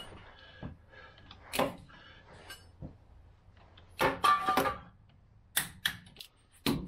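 Wrench ratcheting and clicking in short runs, with metallic clinks, as the Dana 44 differential bearing cap bolts are torqued down. The busiest run of clicks comes a little past the middle.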